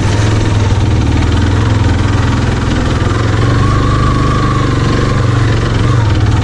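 Motorcycle engine running at low, steady revs while the bike is ridden slowly over a loose, rocky trail.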